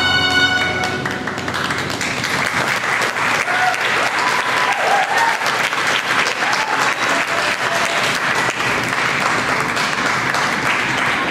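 Audience applauding and cheering, with scattered whoops over the clapping; the performance music cuts out about a second in.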